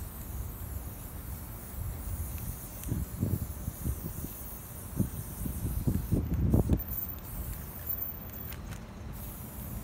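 Aerosol spray paint can hissing in short passes as a letter is filled in on a plastic tarp, with low wind rumble on the microphone and a few soft thuds partway through.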